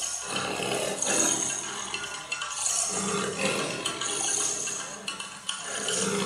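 Jangling, clinking metal percussion in uneven bursts every second or two, with a ringing shimmer on each burst: the live accompaniment to a tholpavakoothu shadow puppet performance.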